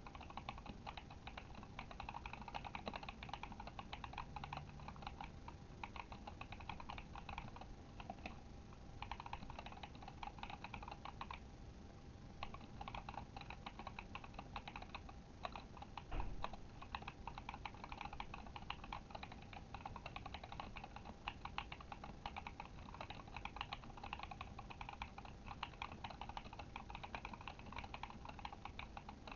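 Typing on a Kemove Shadow mechanical keyboard with Glorious Panda tactile switches: a fast, steady patter of keystrokes, broken by two short pauses. One louder knock comes about halfway through.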